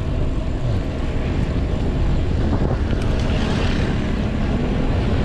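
Steady wind rush on the microphone of a bicycle-mounted camera as the bike coasts downhill, picking up speed.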